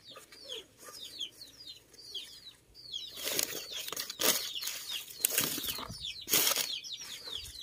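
Tissue paper and newspaper packing crinkling and rustling as a parcel is unwrapped, in several louder bursts, the loudest about three, four, five and six seconds in. Small birds chirp over and over in the background.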